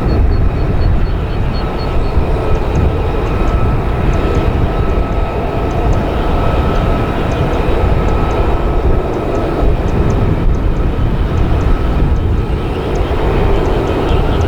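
Military jet aircraft engine noise: a loud, steady rumble with a thin, steady high whine over it.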